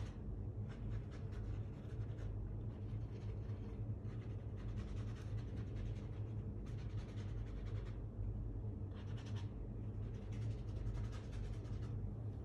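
Paintbrush strokes dragging an ink wash across sketchbook paper: a soft, irregular brushing and scratching, repeated stroke after stroke, over a steady low hum.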